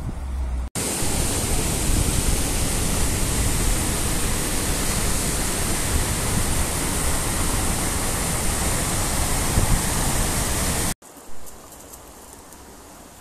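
Small waterfall cascading over rocks in a woodland stream: a loud, steady rush of water that starts and stops abruptly. Near the end it gives way to a much quieter steady background.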